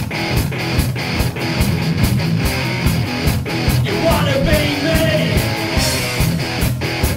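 Heavy metal band recording: electric guitar riffs over a steady drum beat, with a short sliding note about four seconds in.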